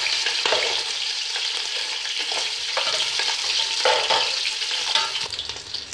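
Boiled mutton pieces frying in hot oil in a large aluminium pot, a steady sizzle as the meat browns. A metal slotted spoon stirs them, scraping and clinking against the pot several times.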